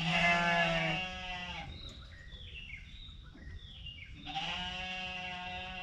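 A lamb bleating twice in long, wavering calls while it is held down for tail banding.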